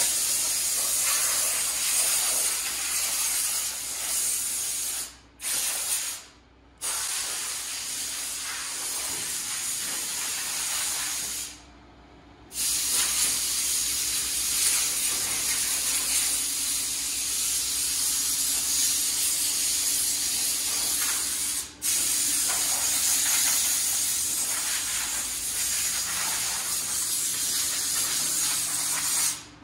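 Compressed air hissing steadily from a handheld air gun at a powder-coating booth. It cuts off briefly about five and six seconds in, for about a second near twelve seconds and for an instant near twenty-two seconds, and stops just before the end.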